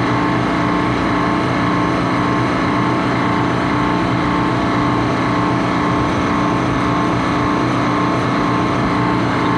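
Refrigeration condensing unit running: the semi-hermetic compressor and condenser fan make a steady mechanical hum holding several even tones.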